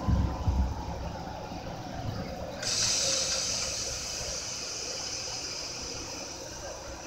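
Interior of an Amtrak passenger train rolling slowly through a station: low rumble with a few thumps and a faint whine falling in pitch as the train slows, then a sudden hiss of air from the air brakes about two and a half seconds in, fading slowly.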